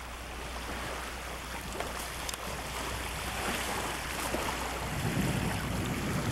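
Outdoor noise on an old camcorder's microphone: a steady hiss over a constant low hum, with a low rumble of wind on the microphone building up about five seconds in.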